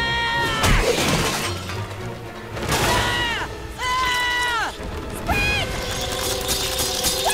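Cartoon sound effects: a crash of clattering junk about a second in, among repeated high drawn-out squeals that each fall away at the end, over a background music score.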